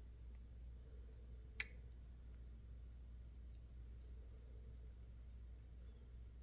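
Small metal lock parts and tools being handled: one sharp click about one and a half seconds in, then a few faint ticks.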